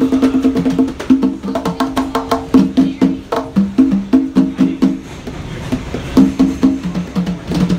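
Conga-style hand drums struck with bare palms in a fast rhythm, each stroke leaving a short ringing tone. The playing thins out about five seconds in, then picks back up.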